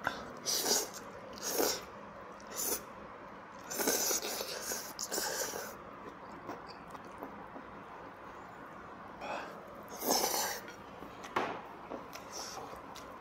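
A person slurping jjajangmyeon noodles in a series of slurps, a second or so apart, with a longer drawn-out slurp about four seconds in.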